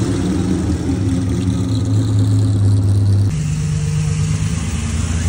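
A car engine idling with a steady low note. The note changes abruptly a little over three seconds in.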